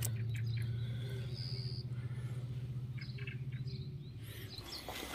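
Birds chirping in short high calls over a steady low pulsing drone, which fades out near the end.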